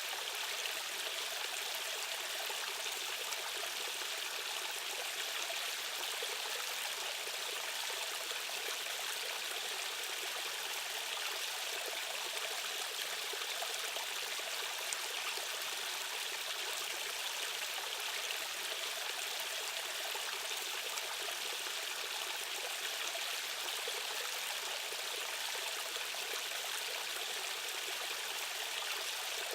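Rushing stream current, water running steadily as an even, bright hiss with almost no low rumble.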